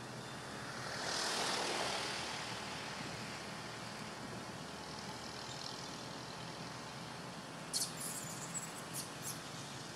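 Steady faint outdoor background noise with a rushing swell that rises and fades about a second in, then a few sharp clicks near the end.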